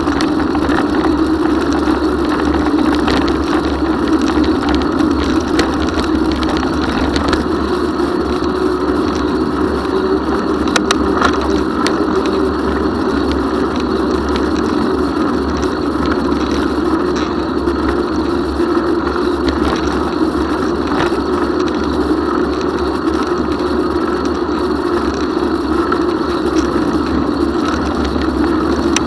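Steady wind and road noise from a bicycle rolling along a paved bike lane, picked up through a camera mounted on the bike, with a few faint clicks and rattles.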